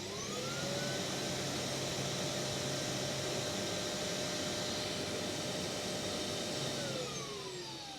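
Eufy E20 self-emptying station's suction motor pulling dust out of the robot's bin: a whine rises over the first second, holds steady over a loud rush of air, then winds down near the end as the emptying cycle finishes.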